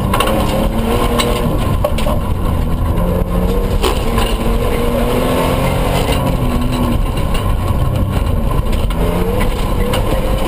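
Toyota 4x4 engine at rally pace, heard from inside the cabin, its pitch rising and falling repeatedly as it revs up and drops through gear changes. A few sharp knocks from the rough gravel track break through.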